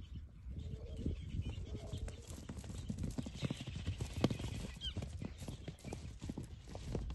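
Quick, irregular clicks and knocks, like hooves or steps on hard ground, with a few faint brief calls.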